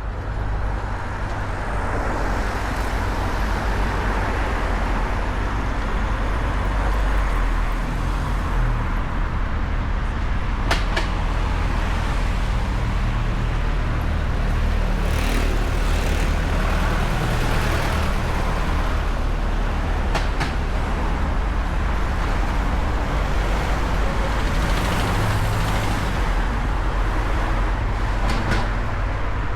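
Steady road traffic, with motor vehicles passing close by and a heavy low rumble throughout, and a few brief sharp clicks.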